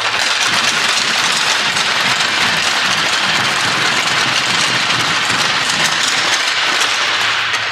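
Audience applauding, starting suddenly and easing off slightly near the end.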